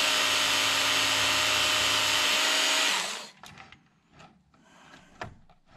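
Work Sharp electric knife and tool sharpener running at a steady whine against a chainsaw chain link to knock off a burr, then switched off about three seconds in and spinning down. A few faint clicks of the chain follow.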